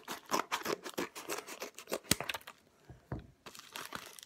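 Scissors snipping through a paper mailer envelope in a quick, irregular run of cuts, then a short pause and more crackly paper sounds near the end as it is opened.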